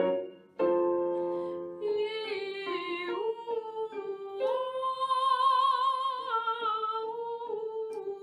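A woman sings a lyric-style messa di voce vocalise with vibrato over piano chords: after a chord is struck, her line climbs, swells on a held high note and steps back down as it eases off.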